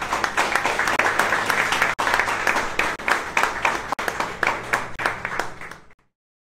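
Small audience applauding, many hands clapping at once with single claps standing out close by. It cuts off suddenly near the end.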